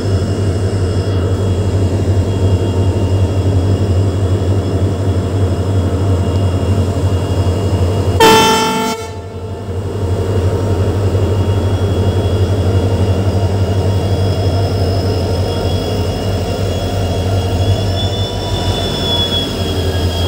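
Three EMD two-stroke diesel locomotives, two WDG4s and a WDP4D, running at the head of a passenger train with a steady deep engine drone. About eight seconds in, the locomotive horn gives one short blast of under a second.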